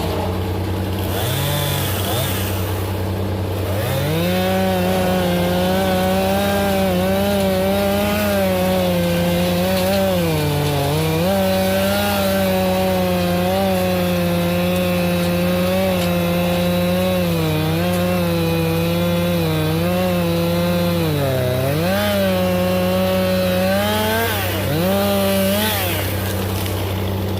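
Two-stroke chainsaw run at full throttle, its engine pitch dipping several times as it bogs under load while cutting through willow wood, over a steady low engine hum.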